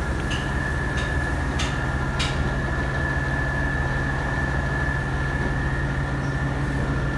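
Truck crane running: a steady diesel engine hum with a high, steady whine over it, and a few light clicks in the first couple of seconds.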